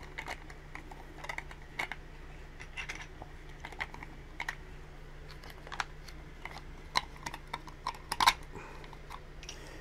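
Light, irregular clicks and taps of 3D-printed plastic 30-06 dummy rounds being pressed by hand into an M1 Garand's steel receiver, with the sharpest click about eight seconds in.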